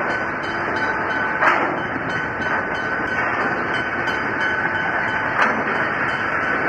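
Freight train wagons rolling past: steady wheel and rail noise with a thin, steady high-pitched ring running through it. There is a louder clack about a second and a half in and another about five seconds in.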